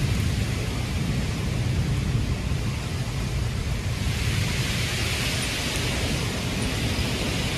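Severe thunderstorm: a steady rush of wind and rain over a deep, continuous low rumble. The higher hiss grows louder about halfway through.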